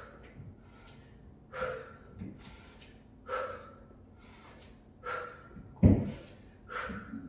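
A woman's sharp, rhythmic breaths during a leg-swing exercise, one about every second and a half to two seconds. A louder dull thud comes about six seconds in, a foot coming down on the floor.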